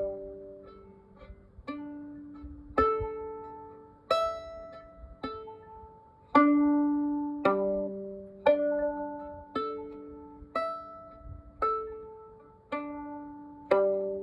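Background music: a slow run of plucked chords, one struck about every second, each fading away before the next.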